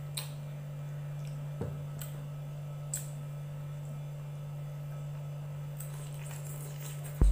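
Faint eating sounds: a few light clinks of a metal fork and spoon against a bowl of noodles, over a steady low hum. A loud thump comes right at the end.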